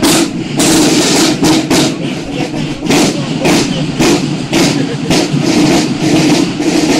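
Buekorps marching drums, snare-type field drums, beating a march cadence: loud accented strokes about twice a second over a continuous rattle of rolls.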